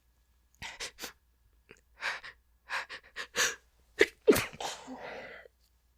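A woman's sneeze: a run of short, catching in-breaths builds up over a few seconds, then the sneeze breaks out sharply about four seconds in, trailing off in a breathy sound.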